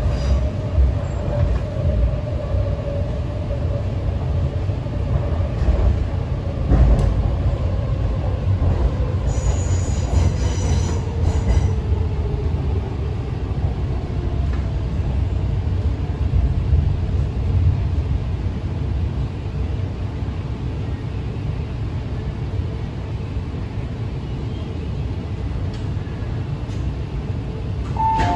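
MTR Kwun Tong Line C-train heard from inside a passenger car while running, with a steady low rumble from the wheels and track. A motor whine falls slowly in pitch over the first dozen seconds as the train slows. There is a knock about seven seconds in and a thin high squeal from about nine to twelve seconds.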